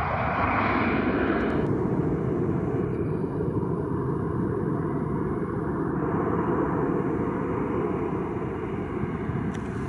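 Steady rumbling noise of jet aircraft engines at an airport, broken by an abrupt cut near the end.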